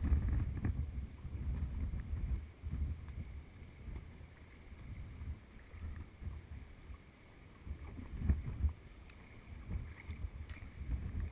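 Wind buffeting the microphone in uneven gusts, loudest at the start, dying down through the middle and gusting again briefly about eight seconds in.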